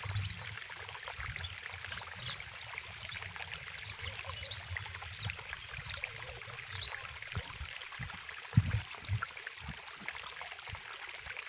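Outdoor water ambience, a stream or trickle running with a steady hiss, with a few faint short high chirps and a couple of low thumps about eight to nine seconds in.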